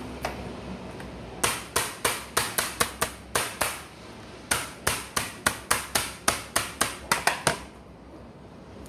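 Metal meat mallet pounding a raw chicken breast on a plastic cutting board: two runs of quick blows, about four or five a second, with a short pause between them.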